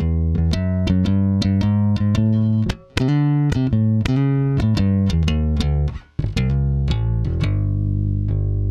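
FGN Neo Classic Jazz Bass played through its stock neck single-coil pickup, soloed: a fast run of plucked bass notes with sharp attacks, breaking off briefly twice.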